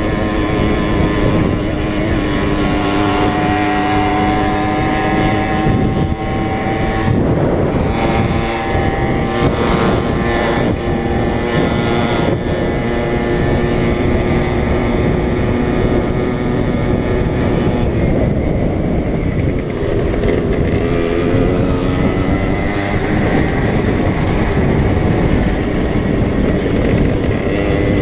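Small two-stroke moped engine running hard at race speed, its note holding for a few seconds at a time and then rising and falling, over a steady rushing noise.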